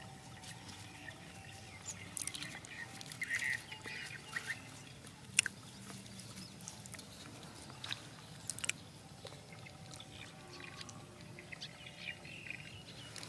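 Dogs eating from plastic bowls: chewing, with scattered sharp clicks and knocks as they nose and tip the bowls. The sharpest click comes about five seconds in.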